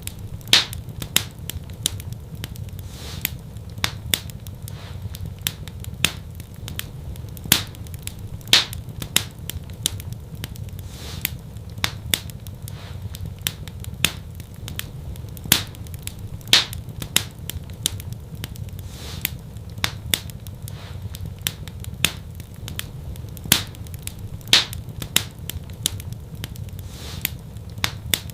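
Wood fire in a fireplace crackling: irregular sharp pops and snaps, several a second, some much louder than the rest, over a steady low rumble of burning.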